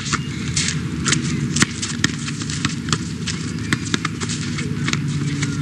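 Basketball players' shoes slapping and scuffing on an outdoor asphalt court, with a basketball bouncing: many sharp, irregular knocks. A steady low hum runs underneath.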